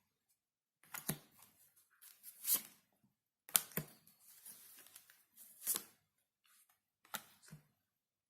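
Tarot cards being handled and laid out on a table: a series of about six short swishes and taps, a second or so apart.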